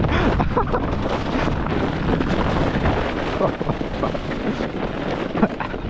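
Round plastic 'apple' saucer sled sliding fast over packed snow: a continuous rumbling scrape with many small bumps and knocks, with wind on the microphone.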